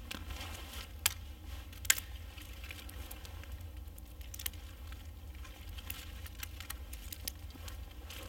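Footsteps on a mossy forest floor and dry twigs cracking while sticks are gathered, with two sharp snaps about one and two seconds in, then lighter crackles and rustling.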